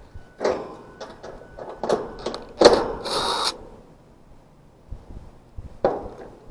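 Clicks, knocks and clatter of tools and metal parts being handled on an air-conditioner condenser unit, with a brief buzzing whirr of about half a second a little after the loudest knock, and a single knock near the end.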